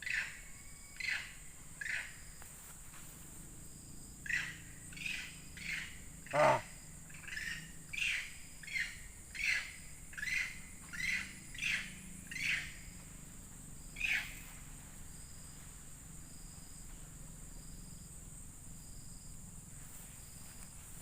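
A series of short, sharp animal calls, repeating about once a second for some fourteen seconds and then stopping. The loudest call, about six seconds in, drops steeply in pitch. A steady high insect drone runs behind.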